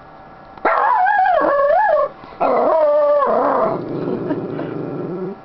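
Schnauzer howling happily: two long, wavering howls, the second holding steady and then trailing off lower.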